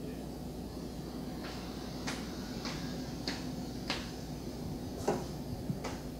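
Footsteps on a hard floor: a regular run of sharp clicks, about one every 0.6 s, starting a second and a half in and loudest near the end, over a steady low hum.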